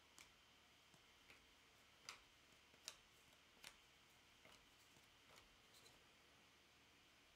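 Near silence with a dozen or so faint, irregular clicks and ticks, the loudest about two and three seconds in: trading cards and their plastic sleeves being handled and sorted on a table.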